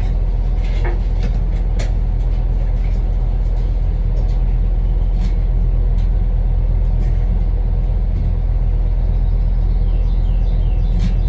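Steady low mechanical drone of a motor running, with a few light clicks and ticks over it.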